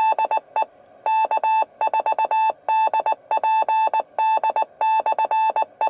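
Morse code tones coming from a Kenwood TM-241A 2-meter FM radio's speaker: a single steady beep keyed on and off in short and long elements, dots and dashes. On a repeater frequency like this it is typical of the repeater sending its callsign identification after a transmission.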